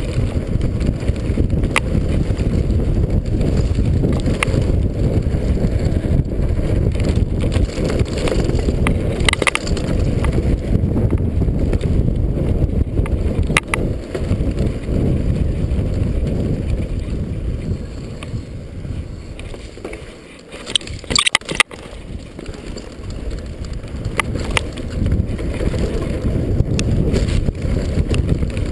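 Mountain bike descending a dirt singletrack: a steady low rumble of wind on the microphone and tyres on the trail, with scattered clicks and rattles from the bike over bumps. There is a burst of sharp rattles about three-quarters of the way through.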